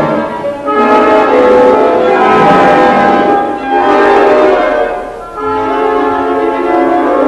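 Orchestra playing modern atonal music in dense, many-voiced sustained chords. The sound briefly thins three times and swells back each time.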